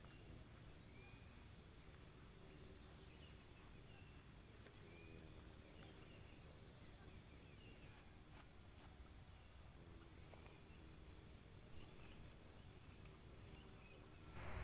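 Faint, steady chirring of crickets and other night insects, high-pitched and finely pulsing, with a few faint short chirps over it.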